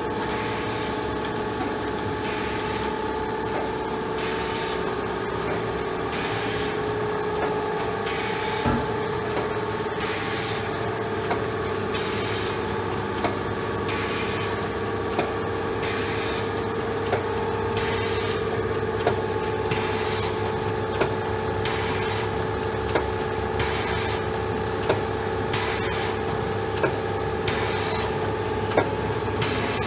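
Special Adhesive Process Machine MkIII F1 running steadily in continuous production: a constant motor hum, with a sharp click about every two seconds through the later part and repeated short bursts of hiss.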